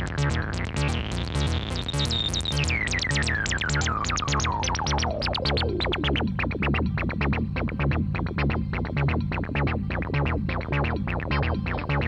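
Modular synthesizer patch playing fast, even pulsing notes over a repeating bass pulse, through the Erica Synths Fusion VCF3 resonant tube lowpass filter. The filter cutoff is swept by hand: the resonant peak rises to a high whistle in the first couple of seconds, then glides down over about four seconds and settles into a darker, duller tone.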